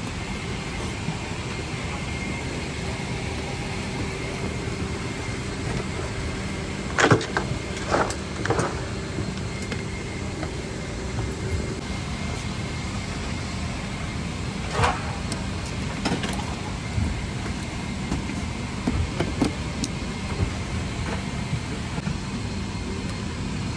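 Steady hum of a Boeing 777-300ER airliner cabin, with a few sharp knocks and rustles from the seat area: a cluster about seven to nine seconds in and another near fifteen seconds.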